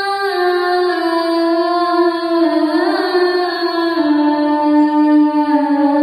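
A child's voice chanting the adzan, the Islamic call to prayer, in long held notes with melismatic turns. The pitch steps down about four seconds in.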